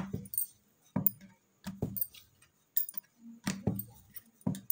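Wooden rolling pin working dough on a wooden board, with short irregular knocks of the pin and board, about eight in all, and soft rubbing between them. A light jingle of bangles on the rolling wrist goes with the strokes.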